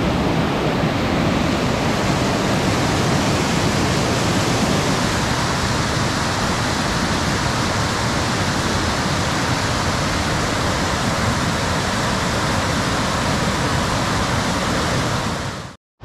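Rushing mountain river: a loud, steady rush of fast water, which cuts off suddenly near the end.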